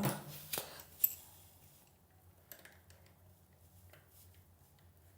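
A few light clicks and taps, the sharpest about a second in, then sparse faint ticks: a plumbing T connector being handled and threaded on by hand.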